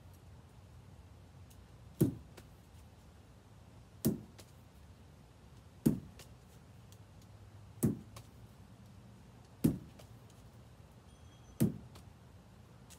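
A lacrosse ball striking hard in a repeated throw-and-catch drill: six sharp knocks about two seconds apart.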